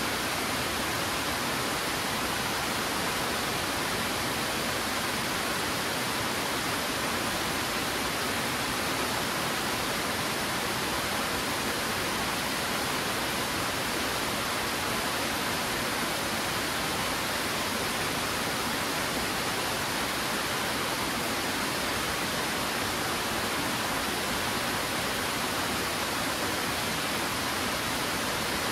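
Twin Falls, a waterfall of two streams cascading down rock ledges, rushing steadily with an even hiss, strongest in the upper-middle range.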